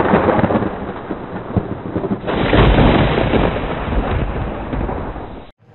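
Thunder sound effect: a rolling rumble, then a second thunderclap about two seconds in that rolls on and fades, cutting off suddenly shortly before the end.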